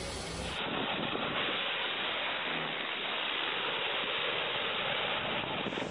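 Aircraft landing noise. About half a second in it cuts to a steady, hissing rush from a small plane passing low over the runway on its final approach.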